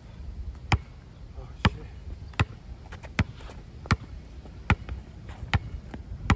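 Basketball dribbled on an outdoor asphalt court: eight sharp bounces at a steady pace, a little slower than one a second.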